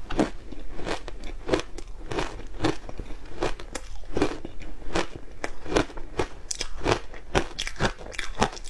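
Ice being chewed close to the microphone: a steady run of crisp crunches, about two a second.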